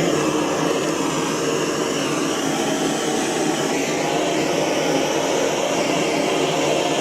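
Propane torch burning steadily with a loud rushing flame, heating a joint for silver soldering. It comes on suddenly just before and holds even throughout.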